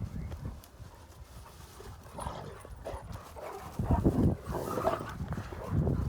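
Cane Corso dogs moving about, with irregular dull thuds that are loudest about four seconds in and near the end.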